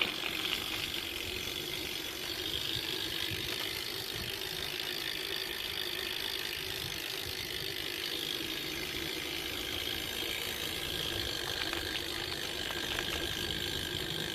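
A BMX bike's Salt rear hub freewheel ticking steadily and rapidly as the rear wheel turns without being pedalled.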